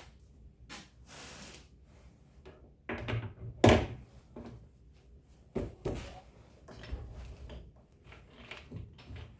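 Machine parts and tools being handled: scattered knocks and clunks, with a brief scrape about a second in and one loud clunk a little under four seconds in.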